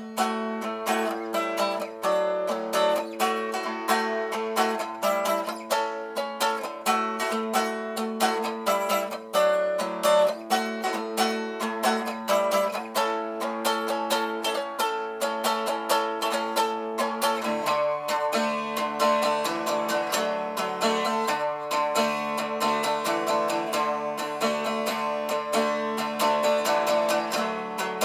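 Acoustic cigar box guitar played blues-style: plucked strings over ringing drone notes, with a lower bass note joining about two-thirds of the way through.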